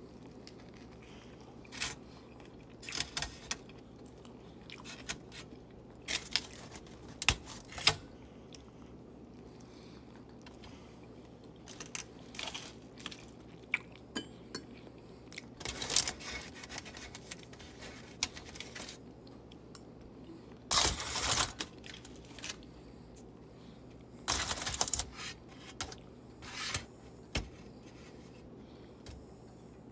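Close-up eating sounds of a burrito being bitten and chewed: irregular wet clicks and crunches, with a few louder noisy bursts about 21 and 24 seconds in.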